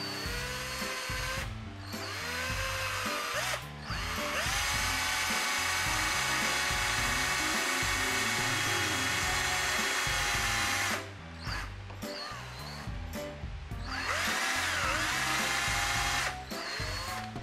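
Black+Decker cordless drill with a twist bit boring dowel holes into the end grain of a timber. The motor whines in several runs, rising in pitch as it spins up: a couple of short runs, then one steady run of about seven seconds, then another short run near the end.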